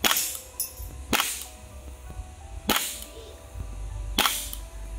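Airsoft pistol firing four single shots, each a sharp crack about one and a half seconds apart.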